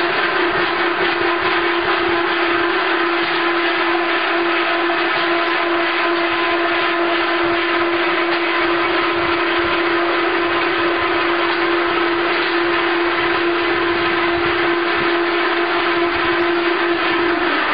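Spindle veneer peeling lathe with its automatic log feeder running: steady loud machine noise with a constant whine that cuts off near the end.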